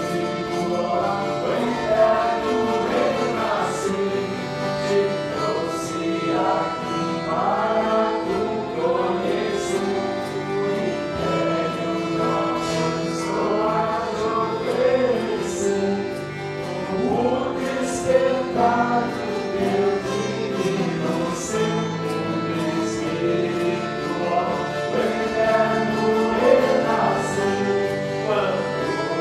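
A mixed group of men and women singing a Santo Daime hymn together, accompanied by guitars.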